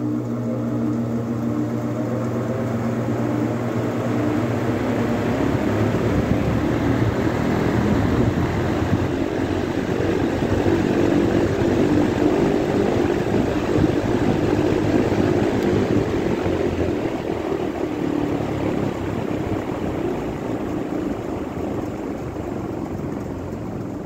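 36-inch Global Industrial tilt blower fan spinning up to speed: a motor hum with a rising whine over the first few seconds, giving way to a loud, steady rush of air from the blades. The rush is loudest about halfway through and eases slightly near the end.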